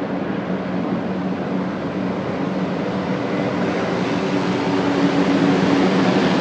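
A group of helicopters flying over, a steady rotor and engine drone with a low hum, growing a little louder about five seconds in.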